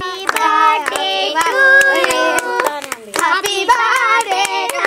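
Girls singing together and clapping their hands along with the song.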